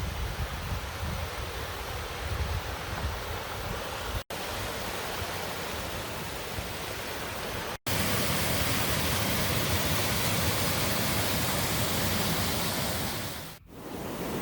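Waterfall rushing, a steady hiss of falling water, with a low wind rumble on the microphone in the first few seconds. The sound cuts out abruptly twice, about four and eight seconds in, comes back louder and brighter after the second cut, and dips briefly near the end.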